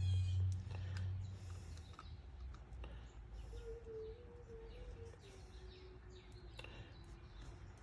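Small clicks and light knocks of metal parts being handled as the wiper motor assembly is put back together. A low hum fades out in the first second, and a faint wavering tone sounds in the middle.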